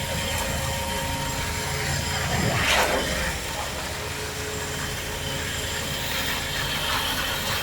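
Construction machinery running steadily with a low engine hum, and one louder rising-and-falling swell about two and a half seconds in.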